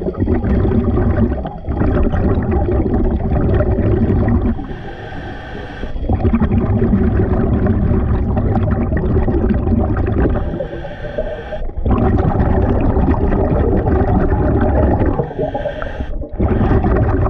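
Scuba diver breathing through a regulator underwater: long bubbling exhalations of about four seconds each, separated by shorter, quieter hissing inhalations, about three full breath cycles.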